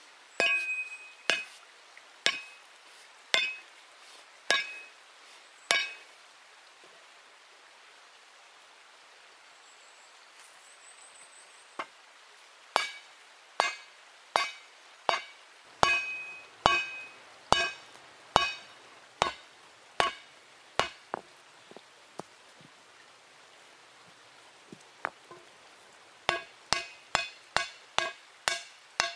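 Hand-held stone hammer striking hot steel on a stone anvil while forging: sharp clinking blows, each with a short ring. The blows come in three runs, about one a second at first, then after a pause of several seconds a second run at a similar pace, then after another pause a quicker run of about three blows a second near the end.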